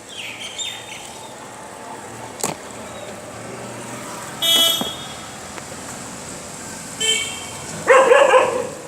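Vehicle horns tooting briefly in the street, once about halfway through and again near the end, followed by a louder, harsher burst just before the end.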